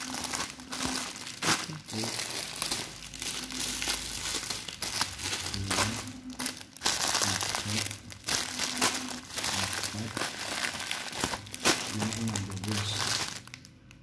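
Bubble wrap and plastic packaging crinkling and rustling as hands dig through it and lift out boxes, in a busy run of irregular crackles that dies down near the end.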